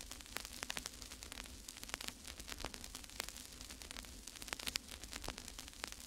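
Crackling static: irregular sharp clicks and pops over a steady hiss, with a faint low hum underneath.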